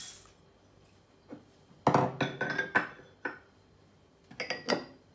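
Glass bowls clinking and knocking as they are handled and set down on a kitchen counter: a run of knocks about two seconds in and a shorter one near the end.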